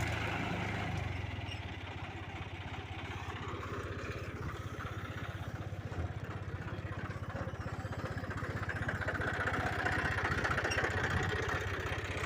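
Heavy machine engine running steadily with an even low throb, easing off a little about two seconds in and growing louder again near the end.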